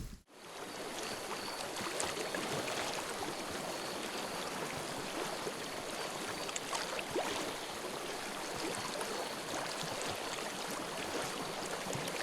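Water flowing and splashing steadily, with many small drips and splashes, like a stream, after a brief silence at the very start.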